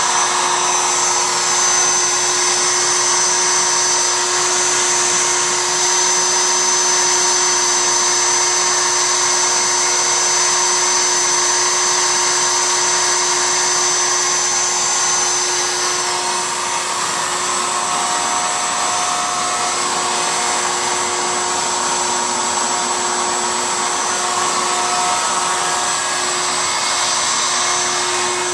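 CNC router running, its spindle bit cutting a small inlay in wood: a loud, steady, high whine over a broad hiss. The pitch mix shifts slightly about halfway through as the cut goes on.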